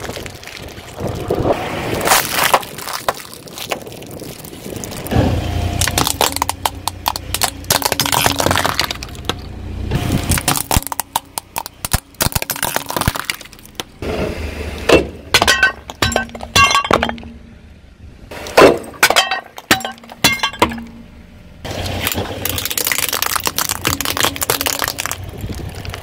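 A car tyre rolling slowly over brittle objects and crushing them, including a clay roof tile: a long run of cracks, crunches and snapping breaks. The breaks come thickest and loudest in the middle.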